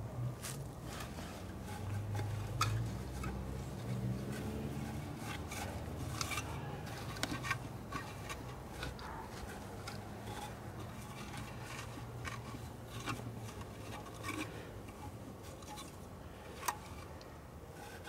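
Burlap sacking rustling and scraping against the wooden hive box as hands spread and tuck it in, with scattered light clicks and a low hum underneath.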